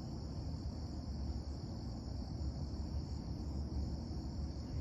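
Steady high-pitched chorus of insects, unchanging throughout, over a low rumble.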